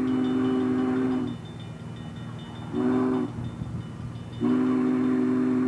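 Steam locomotive chime whistle sounding a multi-note chord for a grade crossing: a long blast that ends about a second in, a short blast near the middle, and another long blast from about two-thirds of the way through, over a steady low rumble of the train.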